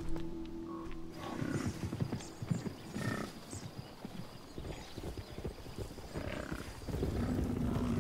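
Hoofbeats of a herd of large hoofed animals on the move, an irregular run of low knocks, with a few short animal calls.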